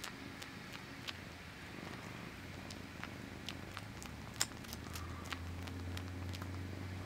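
Domestic cat purring steadily, louder in the second half, while sucking on its own paw with scattered small wet clicks.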